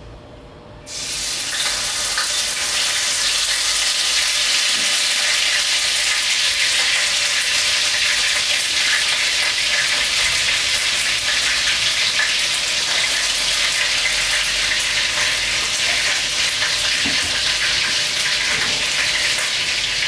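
Onions dropped into hot vegetable oil in a wok, starting to sizzle suddenly about a second in and then frying with a loud, steady hiss.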